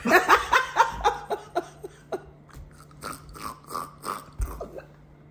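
A woman laughing hard: a quick run of falling "ha-ha" laughs at first, then breathier, broken laughter.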